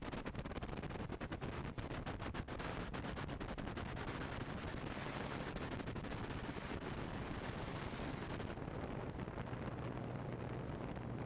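Wind buffeting and rotor noise picked up by a flying camera drone's microphone: rapid crackling for the first couple of seconds, then a steady rushing noise, with a low steady hum coming in about eight and a half seconds in.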